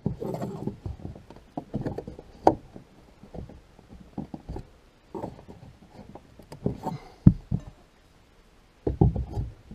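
Wooden wall trim being worked loose and pried off: irregular knocks and taps of wood and tool, with a few sharper hits.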